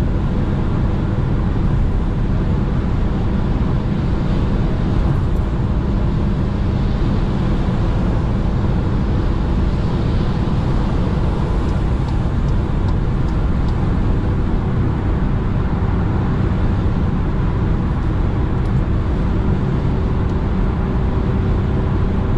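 Cabin noise of a 2019 Seat Ibiza with its 1.0 MPI three-cylinder petrol engine, cruising at motorway speed: a steady low drone of engine, tyres on the road and wind, heard from inside the car. The pitch holds level throughout, with no gear changes.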